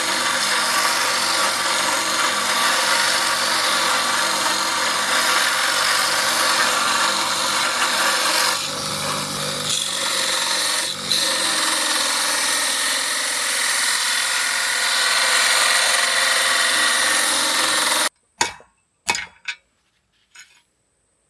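Abrasive power tool grinding: a steady rasping that stops suddenly about eighteen seconds in, followed by a few light taps and clicks.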